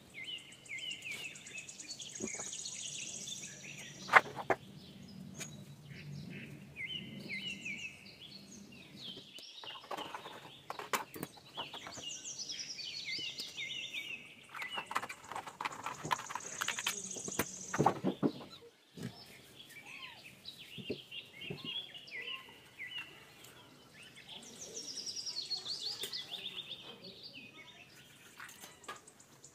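Birds chirping in the background, the same high twittering phrase recurring every few seconds. Over it come scattered knocks, taps and rustles from a stiff sheet and a steel ruler being handled on a tiled floor. A single sharp tap about four seconds in is the loudest sound.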